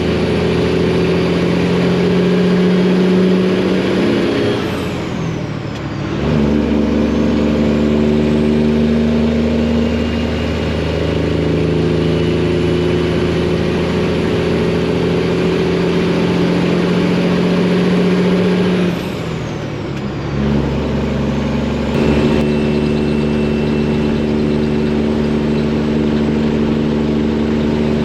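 Detroit diesel engine in a Freightliner semi truck pulling at light throttle through the gears. Two upshifts, about five seconds in and again near twenty seconds, each with a brief drop in engine sound while the turbo whistle falls and then climbs again as the engine pulls in the next gear.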